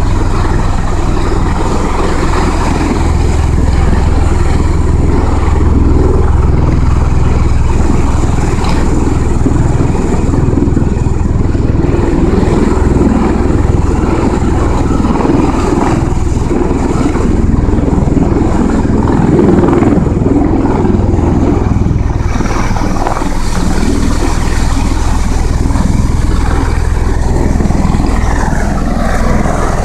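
MV-22 Osprey tiltrotor with its proprotors turned up in helicopter mode, its rotor wash and turboshaft engines making a loud, steady noise with a deep rumble as it hovers and sets down on a flight deck.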